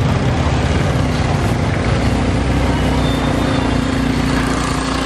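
A motorbike engine running steadily close by, over the continuous low rumble and general noise of a busy street market.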